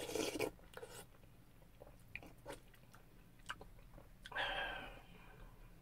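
A man eating close to the microphone. At the start comes a noisy mouthful as a wooden spoonful of fried rice goes in, then soft chewing with a few short mouth clicks, and about four seconds in a longer noisy burst that fades away.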